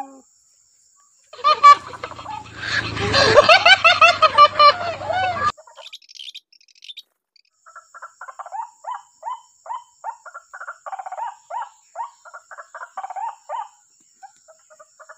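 White-breasted waterhens calling. About a second in, a loud burst of many overlapping calls runs for about four seconds. After a short pause comes a steady run of short repeated call notes, about three a second.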